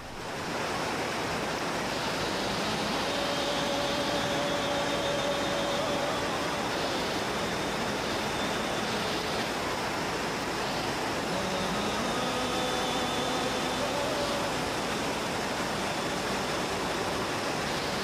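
Tirathgarh waterfall's water rushing and pouring over the rocks, a steady roar that doesn't change.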